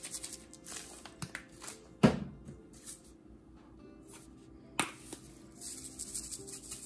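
Spice shakers being shaken over raw chicken breasts in a slow-cooker crock, a fast rattling shake at the start and again near the end. In between come two sharp knocks, the louder about two seconds in and another near five seconds.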